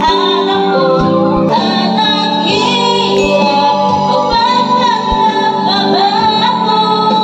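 A pop song with a female lead vocal, played loud through a mid-high PA speaker setup for a sound check, thin on deep bass.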